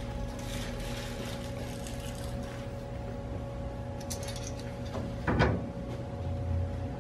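Small metal clicks and rattles as a steering-wheel hub is handled and worked onto the end of the steering shaft, with one louder clunk about five and a half seconds in, over a steady background hum.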